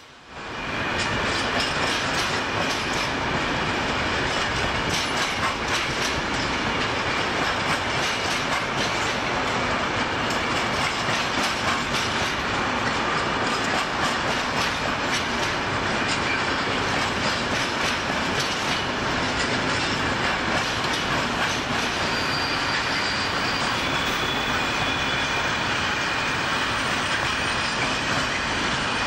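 Freight train of container wagons on flat cars rolling past, a steady loud rumble of wheels clattering over the rails that comes up sharply in the first second. Faint high wheel squeal appears about two-thirds of the way through.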